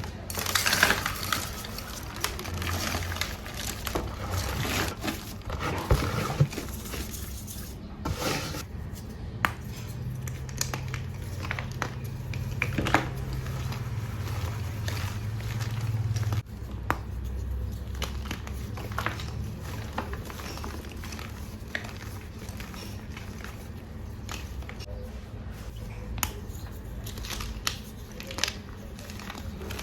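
Bars of reformed (re-pressed) gym chalk being crushed, giving many sharp crunches and crackles, over a steady low rumble of construction machinery that drops lower in pitch about halfway through.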